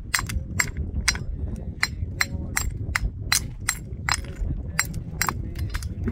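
Hammer striking stone in a steady rhythm, about two to three sharp clinking strikes a second, over a low rumble.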